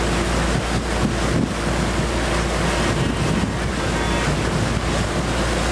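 Wind buffeting the microphone on a boat underway, over a steady rush of water with a low rumble.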